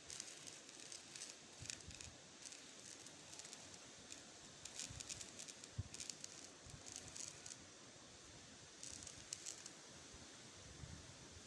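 Faint background hiss with scattered soft rustles and crackles.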